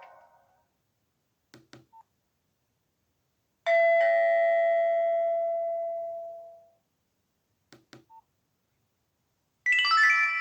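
Nokia 1680 classic's built-in alert tones played through its loudspeaker: a single bell-like chime that rings and fades over about three seconds, then a brighter chiming tone starts near the end. Between the tones come two sets of short clicks with a brief beep, like keypad presses moving through the tone menu.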